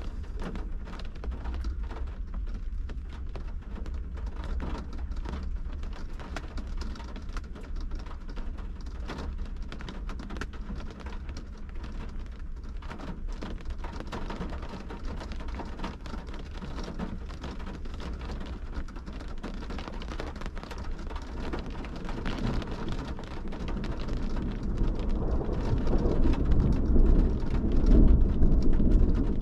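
Rain pattering on a car's windshield and roof, heard from inside the car as a dense, steady patter of drops. It grows louder and deeper over the last several seconds.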